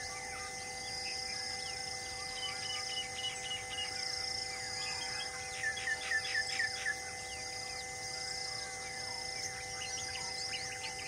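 Tropical forest ambience: many birds chirping and calling over a steady background of insects. A little past the middle, one bird gives a quick run of about six loud chirps.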